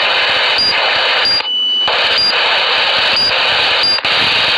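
Walkie-talkie radio static from a fake police radio sound effect: a loud, steady hiss broken by short high beeps, with a brief break about a second and a half in where a steady tone sounds before the static returns.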